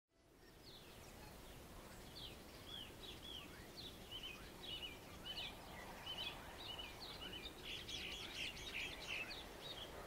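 Dawn chorus of small birds: a run of short repeated chirps, thickening into a denser overlapping chorus about three quarters of the way in, over a steady low wash of sea waves. The sound fades in at the very start.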